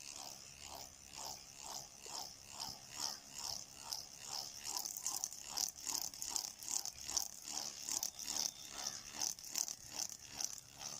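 Homemade coconut-palm-leaf buzzer toy on a palm-leaf midrib stick, worked to imitate a beetle's buzz. It makes a high buzzing that swells and fades about twice a second.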